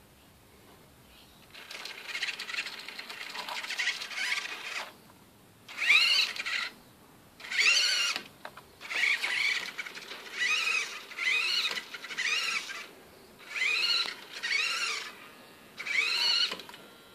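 Steering servo on an electric outboard motor whining as it swings the outboard back and forth under a pulse generator's control. A longer stretch of whining comes a couple of seconds in, then a run of short whines, each rising and falling in pitch, about one a second.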